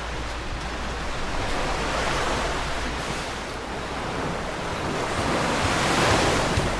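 Sea surf washing onto a sandy beach, a steady rush of waves that swells about two seconds in and again near the end as breakers come in.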